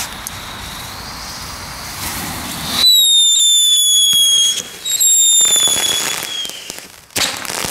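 Small Category 1 ground fireworks hissing as they spray sparks, then two loud pyrotechnic whistles, each a high tone sliding slightly down in pitch, the second fading out. A fresh burst of hissing starts near the end.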